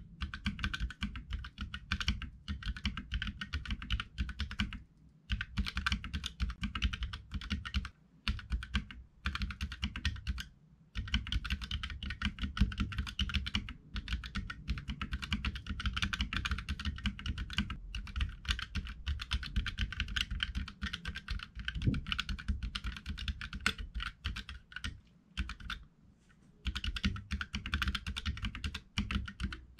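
Keychron K3 low-profile mechanical keyboard with Gateron Red linear switches being typed on quickly: fast, continuous key clatter in long runs, broken by brief pauses a few times.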